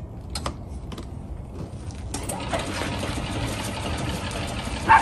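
Metallic clicking of a hand ratchet wrench and rattling hand tools during a car battery swap, ending in a loud metal clank as a tool is dropped into a steel toolbox.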